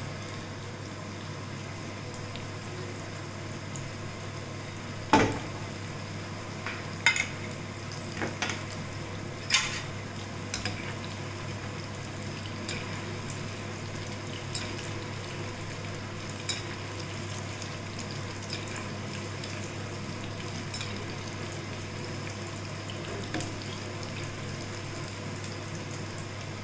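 Mirchi bajji (gram-flour-battered green chillies) deep-frying in hot oil with a steady sizzle. A few sharp clicks of a utensil against the pan come between about five and eleven seconds in, the loudest near five seconds.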